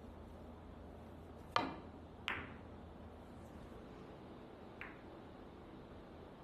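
Three sharp clicks of carom billiard balls. A loud one about one and a half seconds in, when the cue strikes the cue ball, and a second under a second later as the cue ball cuts into the yellow object ball. A fainter click near five seconds in as balls meet again, likely the cue ball reaching the red.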